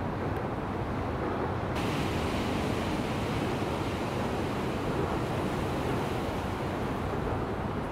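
Ocean surf washing steadily, with wind rumbling on the microphone. The hiss turns abruptly brighter about two seconds in.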